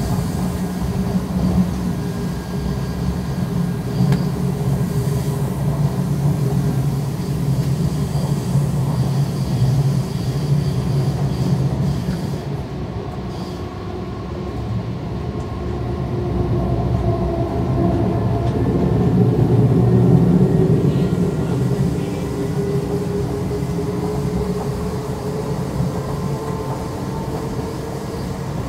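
Ottawa O-Train Confederation Line light rail car (Alstom Citadis Spirit) running at speed, heard from inside: a steady rumble of wheels on rail with a faint whine over it. It swells louder about twenty seconds in, then eases.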